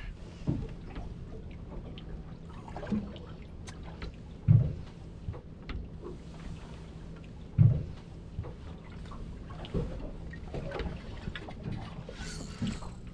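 Water lapping against a small boat's hull on open sea, under a low steady hum, with two dull thumps about four and a half and seven and a half seconds in.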